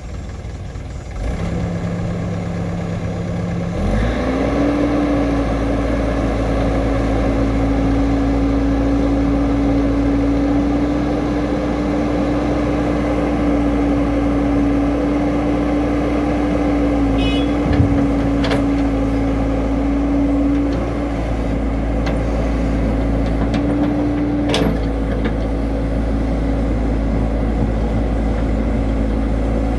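Caterpillar hydraulic crawler excavator's diesel engine running under hydraulic load while digging and loading soil, a steady drone that steps up in pitch about four seconds in as the revs rise. A couple of sharp knocks come through later on.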